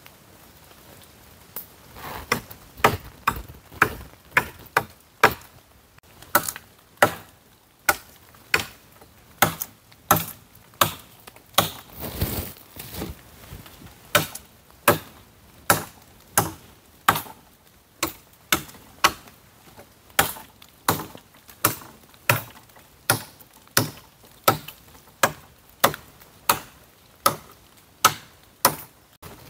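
Dry wood being chopped with a blade: sharp, regular strikes at about three every two seconds, starting a couple of seconds in, with a short pause near six seconds.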